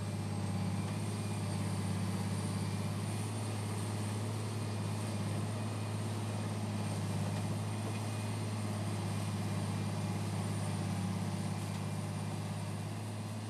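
Large wheeled soil recycler's diesel engine running as a steady low drone while the machine drives over rough ground.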